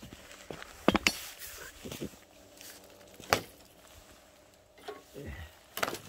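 Footsteps of rubber boots on concrete and packed snow, with a few sharp knocks, the loudest about a second in and about three seconds in.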